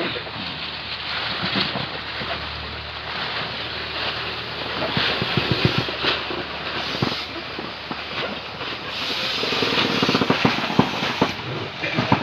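Clear plastic fish-packing bags rustling and crinkling as they are handled, over a steady hiss that grows louder for a couple of seconds near the end.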